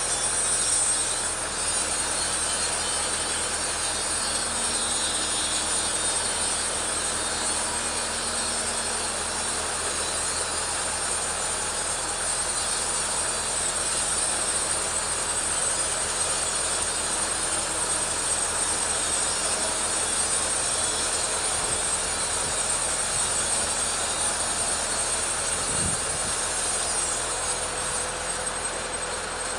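Two-stroke petrol chainsaw running steadily under load as it rip-cuts lengthwise through a teak log.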